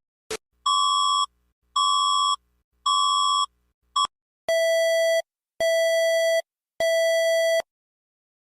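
Electronic emergency alert tone: three buzzy beeps about a second apart, a brief blip, then three beeps at a lower pitch, after which it stops.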